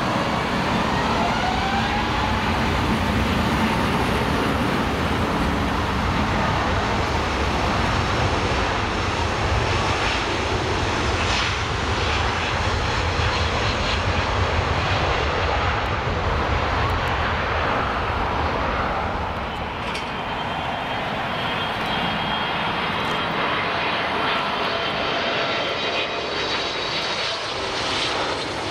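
Airbus A350 twin-jet spooling its engines up for takeoff: a whine that rises in pitch over the first few seconds, then a steady, loud jet roar as it rolls down the runway. About twenty seconds in the sound gives way to a Boeing 777 on final approach, its engines carrying a thin, steady high whine over the rumble.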